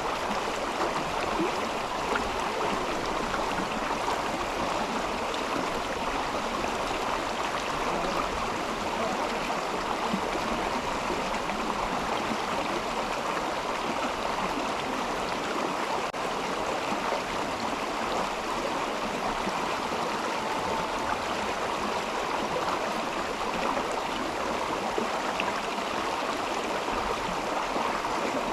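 Mountain river flowing over rocks: a steady, even rush of water with a gurgling churn, unchanging throughout.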